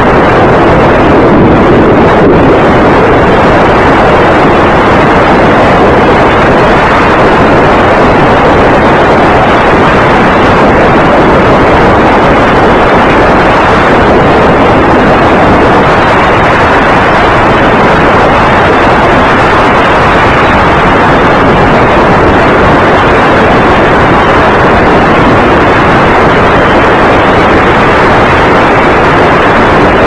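Wind rushing over the microphone of a camera mounted on a Radian RC glider in flight: a loud, steady, even rush with no pitch to it that does not let up.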